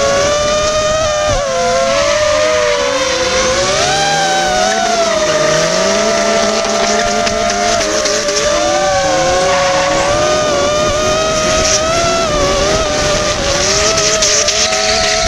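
FPV drone's motors whining close up, their pitch wavering up and down with the throttle, over drift cars' engines revving in repeated rising sweeps and tyres squealing.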